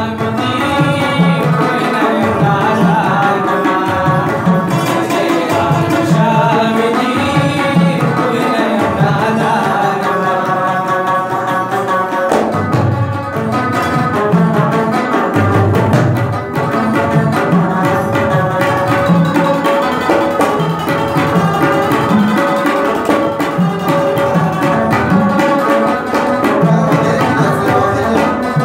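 Rabab playing a Pashto tune, its plucked strings ringing over a hand drum keeping a steady rhythm.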